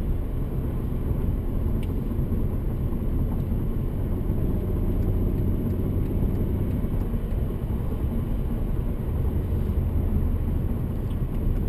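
Mercedes C32 AMG's supercharged 3.2-litre V6 running at a steady cruise, heard from inside the cabin as a low, even drone with tyre and road noise.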